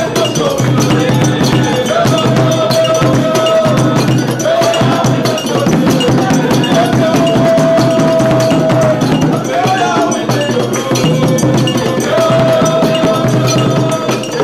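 Lively church praise music: a singer holds long notes over dense, steady percussion and hand clapping.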